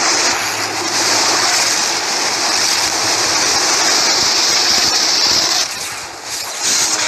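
Rushing ocean-wave sound effect: a loud, steady hiss of breaking surf. It dips briefly about six seconds in, then comes back.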